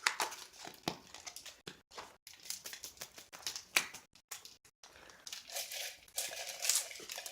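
Irregular crinkling and rustling of something being handled, in short crackles that come and go.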